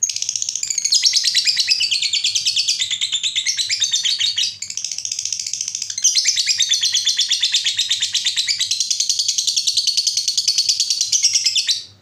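Lovebird ngekek: a long, rapid chattering trill of shrill, quickly repeated notes, easing briefly about four seconds in, then running hard again until it stops abruptly near the end.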